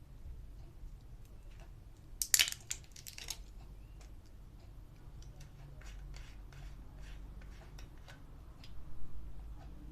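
Product packaging being handled and opened: a loud burst of crinkling and tearing about two seconds in, followed by scattered light clicks and taps and a soft bump near the end.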